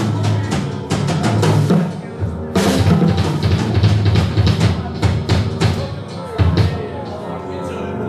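Live band playing loud music with a drum kit driving it: fast snare and cymbal hits over bass drum and sustained pitched instruments. Near the end the drumming drops out and held notes ring on.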